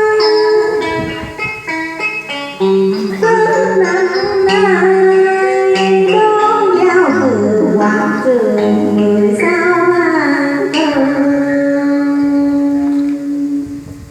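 Đờn ca tài tử music: a plucked-string passage with sliding, bent notes, which fades out near the end.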